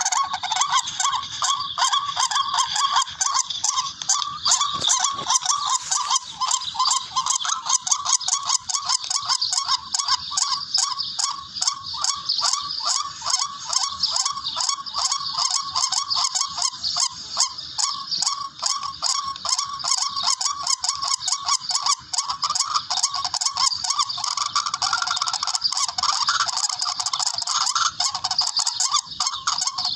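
Recorded calls of a rail (tikling): a rapid, unbroken series of short, harsh, nasal notes, many per second, played as a lure call for hunting.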